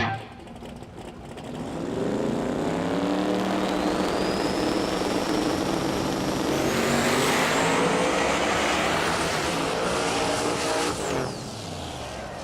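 Turbocharged Ford Lightning drag truck making a full-throttle pass, its engine note rising from about a second and a half in and staying loud, with a high whine climbing over it. The engine sound drops off about eleven seconds in.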